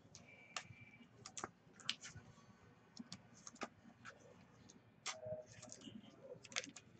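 Faint, irregular clicking of keys being typed on a computer keyboard, several quick strokes at a time with short pauses.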